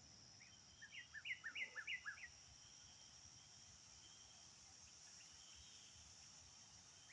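A songbird sings one short phrase of about eight quick, down-slurred chirps in under two seconds, over a steady high insect trill. After the phrase only the insect trill is left.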